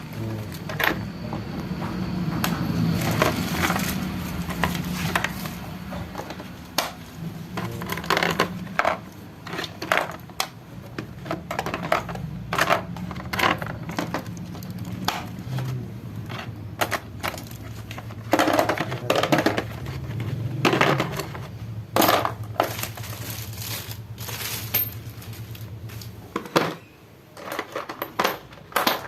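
Hard plastic clicking and clattering as a cordless drill, its parts and packaging are handled and fitted together, in uneven taps and knocks, over a steady low hum that stops near the end.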